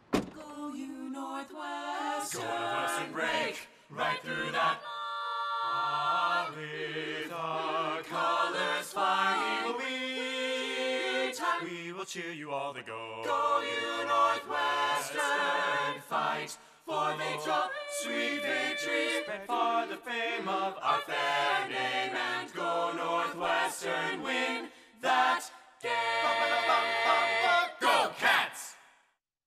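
An a cappella vocal group singing, several voices together without instruments.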